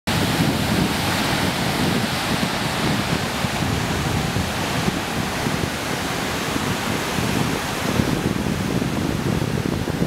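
Ocean surf breaking over a rocky shoreline at high tide: a steady wash of crashing and seething water, easing slightly near the end.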